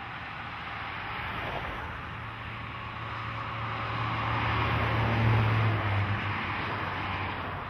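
Highway traffic passing: steady tyre noise with the drone of a semi-trailer truck's diesel engine, growing louder to a peak about five seconds in and then easing.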